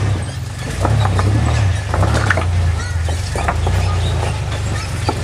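Off-road SUV engine running low and steady as the truck crawls over boulders, with scattered sharp knocks and clicks of tyres on rock.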